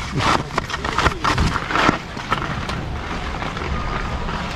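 Skis scraping and hissing over snow in quick irregular strokes for about two seconds, then a steady rush of wind on the microphone while skiing downhill.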